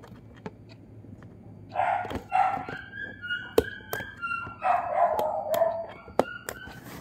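A dog barking and yelping in several bursts, with a few sharp clicks of scissors snipping.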